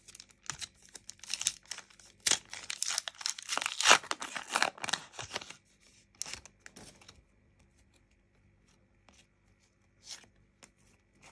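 A Panini Adrenalyn XL trading-card booster pack being torn open by hand: the wrapper crackles and tears for about the first five seconds. Then come a few fainter rustles as the cards are slid out of the opened pack.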